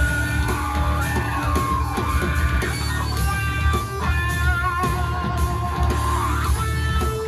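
Heavy rock music played through Klipsch R-40PM powered bookshelf speakers: guitar lines that bend up and down in pitch over heavy bass and drums.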